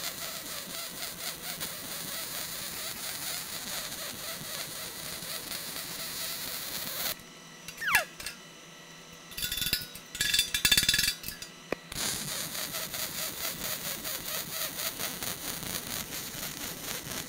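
MIG welding arc on steel sheet, crackling and buzzing steadily as the wire short-circuits into the puddle. The arc stops about seven seconds in. A short squeak and a few sharp metallic clinks follow. The arc strikes up again about twelve seconds in and keeps crackling.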